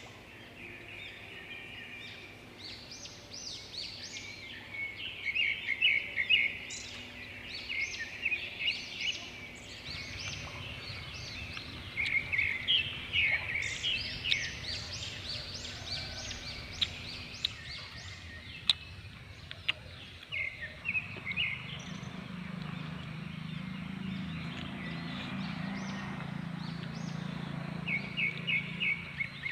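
Many birds chirping and calling in quick clusters of short, high notes. A low steady hum comes in about two-thirds of the way through.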